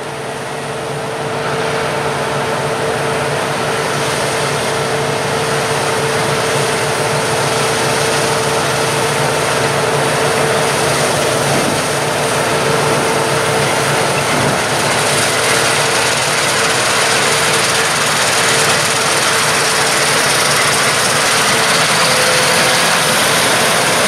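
Claas Lexion 760 combine harvester running under load as it cuts and threshes barley: a steady heavy engine drone with a constant whine. It grows louder over the first couple of seconds as the machine approaches, then holds.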